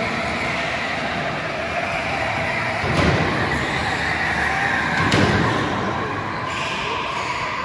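Electric go-karts racing around an indoor track, their motors whining over tyre noise that echoes through the hall. It swells louder as karts pass close, about three and five seconds in, each time with a sharp knock.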